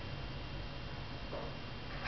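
Steady soft hiss of rain falling at night, with a low hum underneath and a faint short sound about one and a half seconds in; no thunder.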